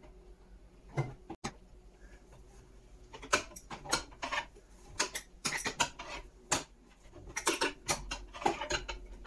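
Metal clicking and clinking of a spanner turning a bolt into the table frame, with a single click about a second in and then a run of irregular clicks, several a second, from about three seconds in.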